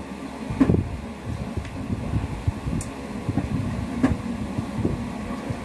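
Steady low background hum in a small room, with a couple of soft knocks, about a second in and again about four seconds in.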